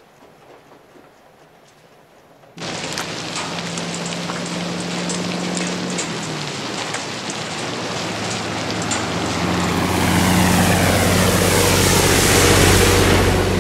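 Heavy rain comes in suddenly about two and a half seconds in, a loud steady downpour. Later a semi-truck's engine and its tyres hissing on the wet road grow louder as it passes through the spray, loudest near the end.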